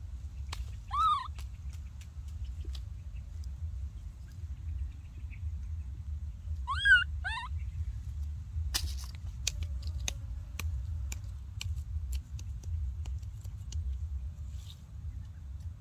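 Baby macaque giving short, high, arching coo calls: one about a second in, then two close together around seven seconds. Between the calls come sharp snaps and crackles of dry twigs and leaves, over a steady low rumble.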